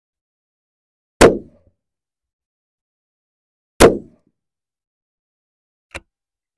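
Two rifle shots from an unsuppressed .308 bolt-action rifle, about 1.2 and 3.8 seconds in, each a sharp crack with a short decaying tail. These are the last two rounds of a five-shot string fired over a barrel-mounted chronograph. A faint click sounds near the end.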